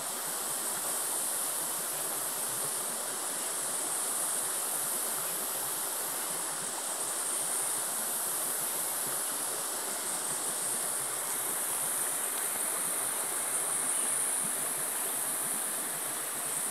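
Steady high-pitched insect chorus of the rainforest, swelling and dipping a little, over an even rushing hiss.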